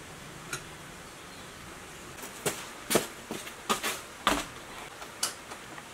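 A cluster of sharp, irregular clicks and knocks from about two seconds in as a hand-cranked coil-winding jig and its white plastic coil formers are handled, over a steady low hiss.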